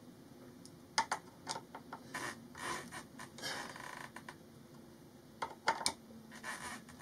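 Hand screwdriver and metal hinge bracket being worked against a cabinet: scattered sharp clicks, loudest about a second in and in a quick cluster near the end, with short scrapes between them.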